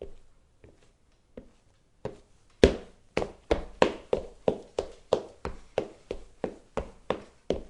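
Footsteps on wooden stairs: a few faint, slow steps at first, then from about two and a half seconds in a quick, loud run of steps at about three a second, each a hollow knock on the treads.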